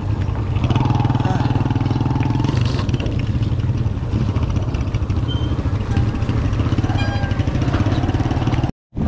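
Wind buffeting the microphone while riding a bicycle on a road: a steady, rough low rumble that drops out for a moment near the end.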